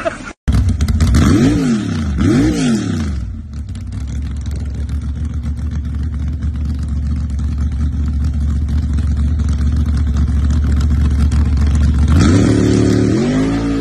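Pickup truck engine revved hard twice, then held at a steady high rev for several seconds, then climbing in pitch again near the end.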